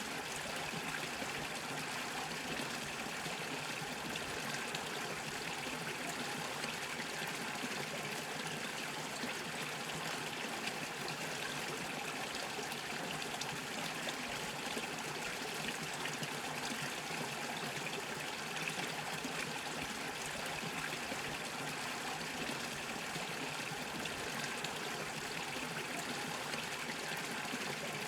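Small mountain brook bubbling and trickling over stones, a steady rush of running water with fine gurgling detail.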